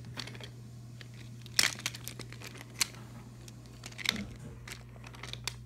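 Scattered clicks and rustles of toy trains being handled on wooden track, with a few sharper clacks, over a steady low hum.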